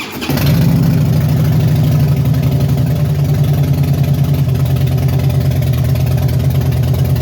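Harley-Davidson Fat Boy V-twin engine firing up right at the start and settling into a steady, pulsing idle. It now starts normally, with the key fob's dead battery replaced.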